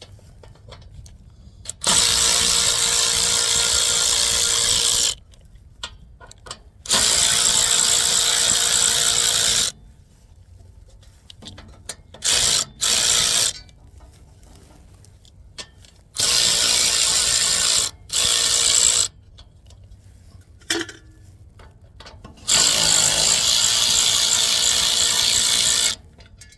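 A power tool runs in bursts of a few seconds, about seven times with short pauses between, working the bolts while worn and missing pickup teeth are replaced on a hay baler.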